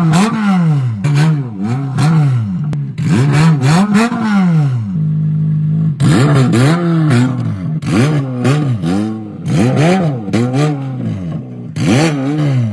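An engine revving in quick repeated blips, its pitch sweeping up and down about once a second and holding steady briefly about five seconds in.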